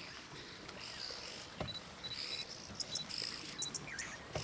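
Bush ambience: a steady insect drone with short, high bird peeps and chirps repeating every half second or so.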